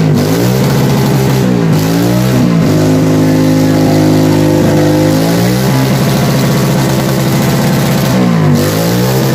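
Honda Rebel motorcycle engine revved hard through its exhaust. It climbs, holds high for about three seconds, drops back, then revs up and falls again near the end.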